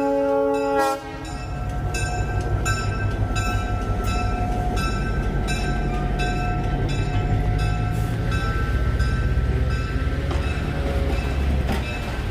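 Excursion train horn sounding and cutting off about a second in. Then the train pulls out with a low running rumble and a locomotive bell striking about twice a second.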